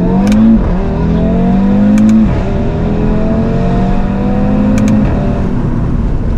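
Audi RS3's turbocharged 2.5-litre five-cylinder (DAZA engine) accelerating hard through the gears. The engine note climbs, drops at two quick upshifts, then climbs more slowly through a longer pull and eases off about five seconds in, with a few sharp cracks along the way.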